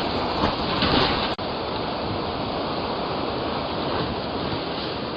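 Strong storm wind buffeting an outdoor camera's microphone: a steady rush of noise with a couple of stronger gusts in the first second and a brief dropout about a second and a half in.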